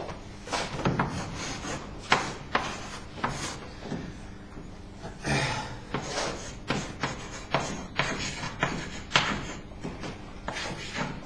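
Chalk writing on a blackboard: an irregular run of short scratching strokes and taps, with one longer stroke about five seconds in.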